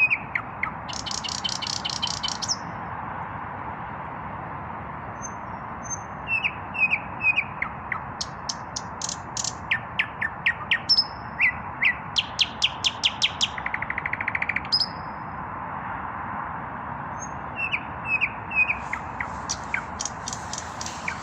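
Nightingale singing: phrases of repeated whistled notes and sharp clicking strokes, with a fast rattling trill just past the middle, separated by short pauses. A steady hiss of background noise runs underneath.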